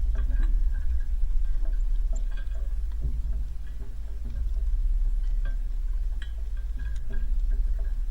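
A steady low rumble with faint, short high chips and ticks from small birds at a feeder scattered over it.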